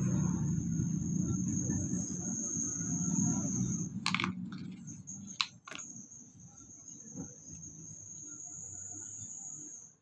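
Handling noise of a leather-strapped wristwatch and its cardboard gift boxes: rustling for the first four seconds, then a few sharp clicks between about four and six seconds in. A steady high-pitched tone sounds throughout.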